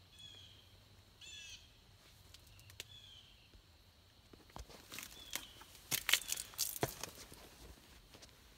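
A bird gives short, harsh calls, two clear bursts in the first two seconds and a few fainter ones later. From about four and a half seconds in, the loudest sound is a close run of rustles and clicks, handling noise from the camera brushing against clothing.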